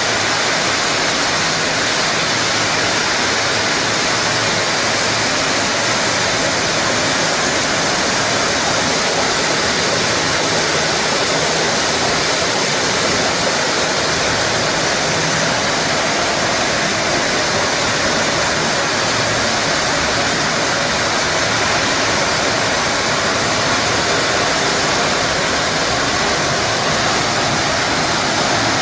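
Yarn spinning machines running in a spinning mill: a loud, unbroken, even hiss with no rhythm or change.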